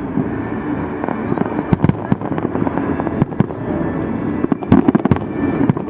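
Salute fireworks going off in a rapid, irregular string of sharp bangs and crackles, with dense clusters of bangs about two seconds in and again near the end.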